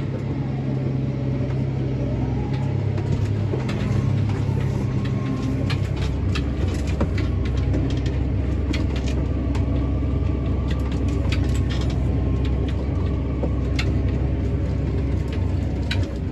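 Tractor engine running under load while pulling a speed disc through the field, with frequent short clicks and knocks over it. The engine note shifts in the first few seconds, then settles into a deep steady rumble from about six seconds in.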